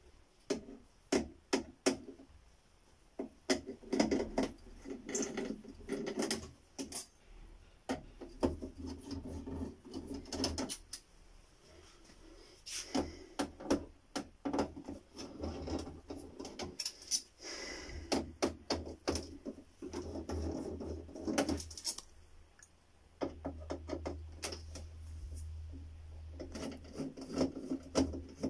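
Irregular clicks, taps and light scraping of a screwdriver, loose screws and hands working on the metal bezel frame of an LCD TV panel as it is taken apart.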